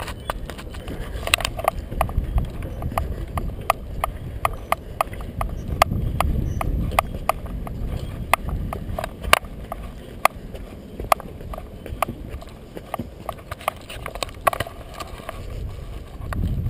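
Footsteps knocking on the wooden plank deck of a suspension footbridge, a steady walking rhythm of about two to three sharp knocks a second, over a low rumble.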